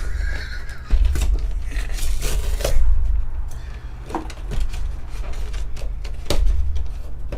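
A trading card box being handled and its packaging torn open: rustling, tearing and scraping, with several sharp knocks against the table.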